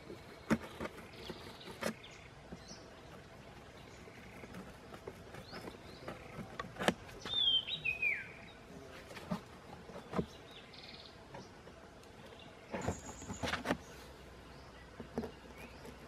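Scattered light taps, knocks and rustles of hands handling a cardboard box trap and its stakes, with one short falling bird chirp about halfway through.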